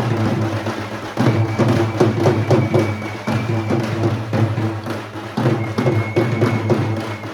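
Samba band playing: dense, rapid drum and percussion hits over a steady low tone, with a high held tone twice, from about one second to three seconds in and again from five and a half seconds to the end.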